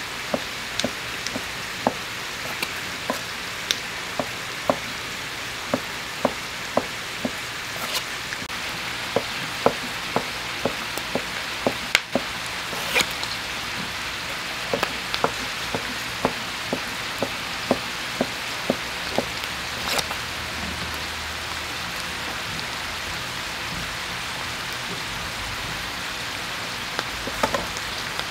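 Pork pieces sizzling on a large iron griddle, a steady hiss. Over it comes a run of sharp taps about twice a second, which stop about two-thirds of the way through and return briefly near the end.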